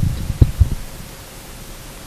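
Two dull thumps of a handheld microphone being picked up and handled, then a steady hiss from the sound system.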